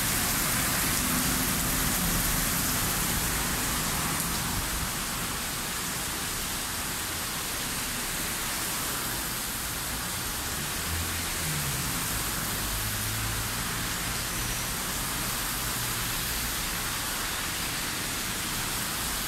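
Heavy rain pouring down, a steady hiss of rain on the street, with a faint low engine hum from passing traffic underneath at times.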